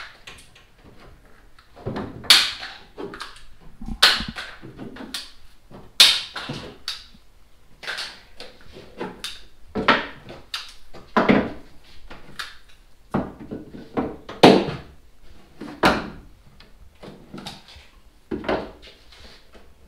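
Woodworking clamps being released from a freshly glued wooden boat rail and set down on the plywood deck: a string of sharp clacks and knocks at irregular intervals, about one a second.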